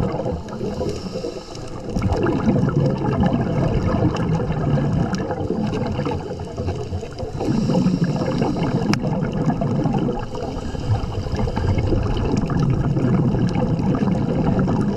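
Gurgling and rushing of bubbles as heard underwater, rising in long swells with brief lulls about a second and a half, six and a half, and ten seconds in.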